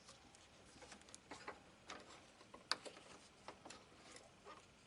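Faint, scattered clicks and light knocks of a snail horn and its metal mounting bracket being handled and angled into place, with one sharper click a little past halfway.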